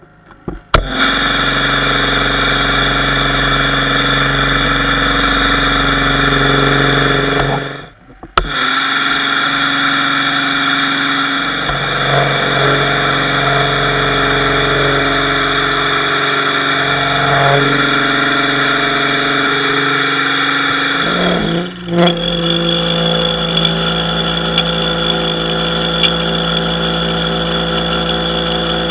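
Pressure washer running steadily, a motor-and-pump hum over the hiss of the spray, first through a foam cannon and then as a plain water jet. The sound cuts out for about half a second around eight seconds in, and shifts in pitch a little after twenty seconds in.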